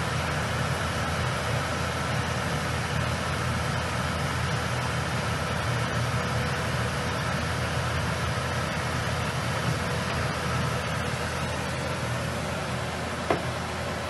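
Steady mechanical whir and hum with a faint steady whine, from the car's R744 (CO2) air-conditioning system running on maximum cooling, its electric compressor and fan. A single brief click near the end.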